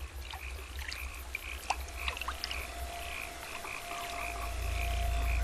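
Stone frogs (giant spiny frogs) croaking in a rapid repeated series, about four calls a second, a call the narration takes for a signal that danger is coming. A low rumble swells in about four seconds in.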